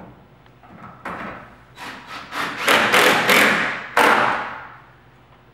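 Fixings being hammered into the hinge-side door jamb: a run of sharp knocks, about three a second, with the last and loudest blow about four seconds in.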